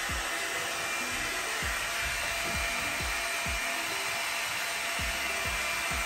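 Hairitage Up In The Air volumizing hot-air brush running on its low setting: a steady, even blowing hiss from its fan and heater as it is drawn through hair. Background music with a steady beat plays underneath.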